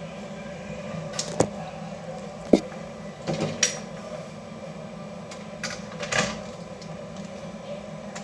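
Scattered sharp clicks and knocks of hard plastic and metal laptop parts being handled, loudest about two and a half seconds in, over a steady low hum.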